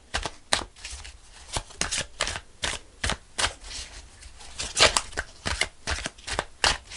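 A deck of tarot cards being shuffled by hand: a run of irregular crisp card slaps and snaps, a few a second.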